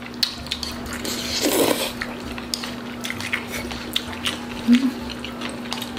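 Close-miked eating sounds of jjajangmyeon: chewing with scattered small clicks of utensils on dishes, over a steady low hum.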